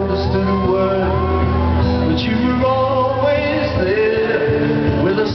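Solo male voice singing over an acoustic guitar, recorded live from a stadium audience.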